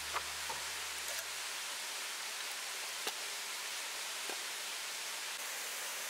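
Steady hiss with a handful of short, sharp clicks or crackles, the strongest near the start and about three seconds in. A low hum fades away over the first two seconds.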